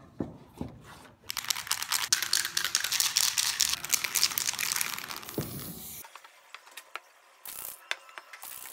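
Aerosol spray-paint can in use for a white first coat: a few seconds of loud, rapid rattling hiss, then two short hisses of spray near the end.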